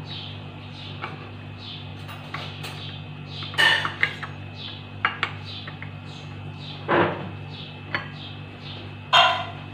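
Glass bowls clinking and knocking as biscuits are dipped in chocolate paste and handled: several sharp knocks, the loudest about a third of the way in, about two-thirds in and near the end.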